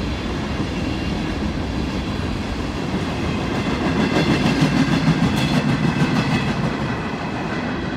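Freight train cars rolling past with a steady rumble, their wheels clacking over the rail joints. The sound swells about four seconds in as the last cars go by, then begins to fade.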